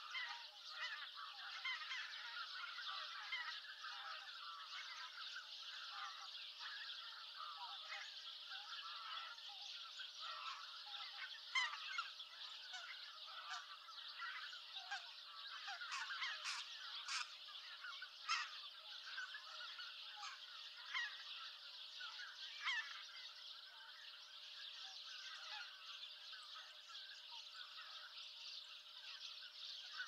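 A flock of greater white-fronted geese calling as they fly in to roost: many overlapping honking calls in a steady chorus, with a few louder single calls near the middle.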